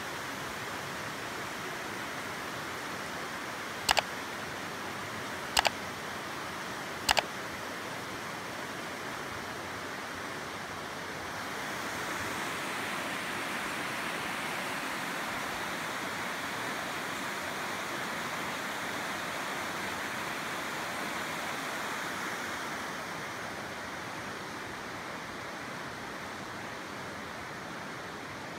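Steady rushing noise, louder for about ten seconds in the middle, with three sharp double clicks about a second and a half apart a few seconds in.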